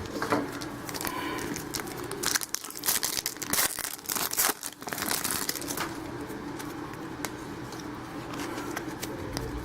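A trading-card pack wrapper being torn open and crinkled, with irregular crackles that are densest a couple of seconds in, then quieter rustling as the cards are handled.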